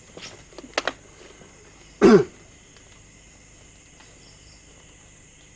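A person's single short cough or throat-clear about two seconds in, preceded by two faint sharp clicks.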